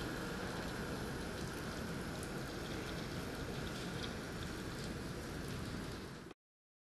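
Heavy downpour of rain falling steadily. The sound cuts off abruptly about six seconds in.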